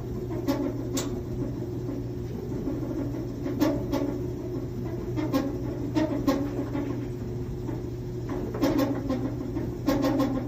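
Samsung clothes dryer running with a steady hum and repeated knocks and rattles at uneven intervals, the abnormal noise of a 6-7-year-old machine.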